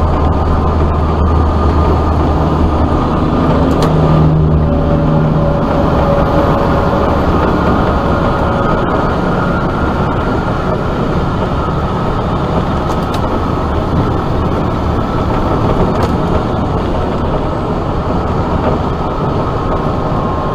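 Steady road noise inside a vehicle cruising at about 70 mph on a highway: tyre and wind rush over a low engine drone. The deepest hum eases off about five seconds in.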